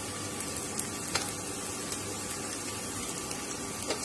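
Sliced onions frying in coconut oil: a steady soft sizzle, with a few faint ticks.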